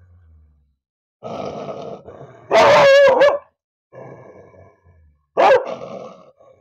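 A cross-breed dog growling and barking: a rough growl, then a long loud bark about halfway through, more growling, and a shorter bark falling in pitch near the end.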